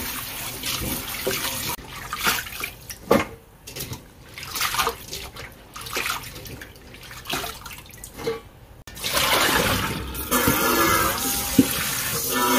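Kitchen tap running into a stainless-steel bowl of water in a sink while hands swish and rub chayote shoots in it. For a few seconds in the middle the steady stream gives way to splashing and sloshing, then the tap runs steadily again from about nine seconds in as the bowl is rinsed under it.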